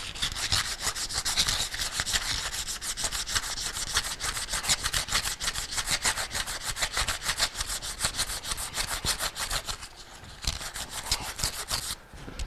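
Emery cloth rubbed quickly back and forth around a new pump shaft sleeve, a fast run of rasping strokes with a short pause late on. It is a light scuffing of the sleeve's tarnished surface.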